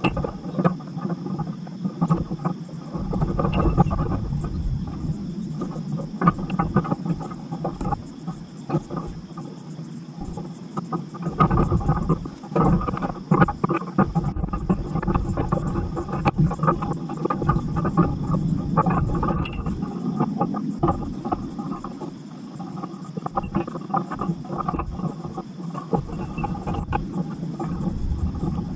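Leafy vines and branches tangled in a chain-link fence rustling and crackling as they are pushed and pulled by hand, in a continuous run of irregular snaps that gets louder in places.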